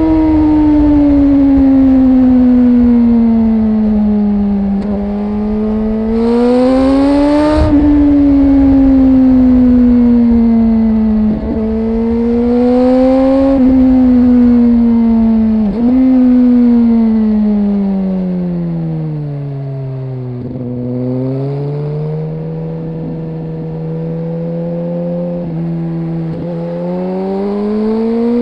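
Suzuki GSX-R 1000's inline-four engine under way, its pitch sagging on closed throttle and climbing again under acceleration several times, with sudden jumps at gear changes. Wind rushes over the microphone twice in the first half, and about two-thirds through the engine drops to a low steady note before climbing again near the end.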